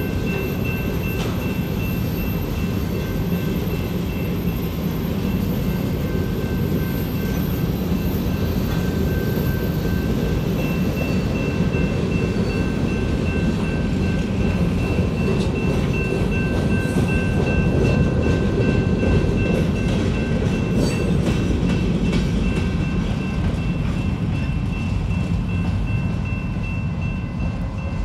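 Loaded covered hopper cars of a Norfolk Southern freight train rolling past: a steady noise of steel wheels on rail, with two steady high-pitched tones above it. The tail of the train clears near the end, and the sound eases slightly.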